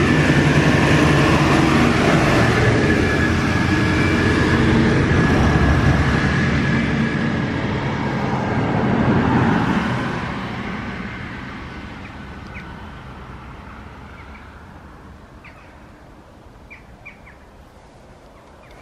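Road traffic: a vehicle passing close by, loud for about ten seconds and then fading away into the distance. A few faint bird chirps come through as it dies down.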